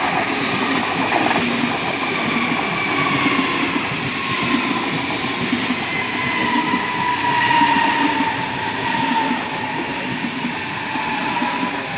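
S-Bahn electric multiple-unit train passing close by at speed: a steady loud rush and clatter of wheels on rail, with a whine that slowly drops in pitch as it goes by.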